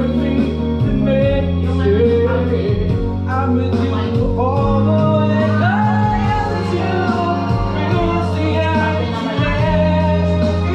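A man singing karaoke into a microphone over a music backing track with a steady bass line, his amplified voice gliding through a sung melody.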